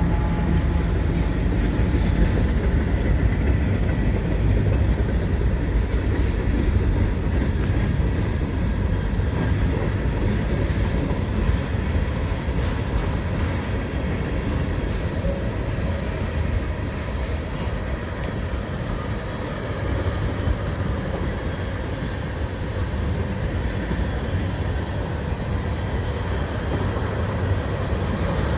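Freight cars of a long mixed freight train rolling past, a steady, loud rumble of steel wheels on the rails.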